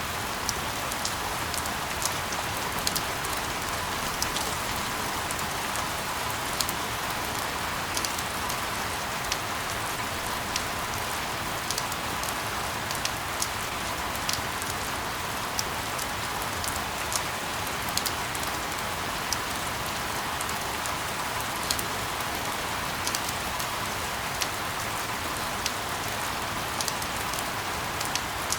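Steady rain falling on a surface: an even hiss with frequent sharp drop ticks scattered through it.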